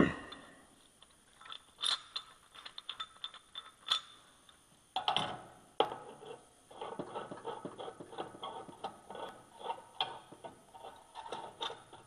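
Small metallic clicks, taps and scrapes of a hand tool working at a furnace blower wheel's hub inside the sheet-metal blower housing, irregular, with a louder clatter about five seconds in.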